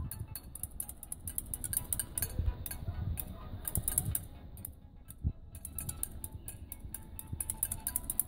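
Drumsticks drummed fast on a building's rendered wall, a quick run of dry, sharp clicks with a short lull midway.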